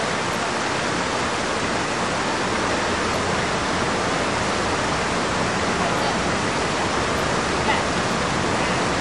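Fountain water falling and splashing, a steady even noise.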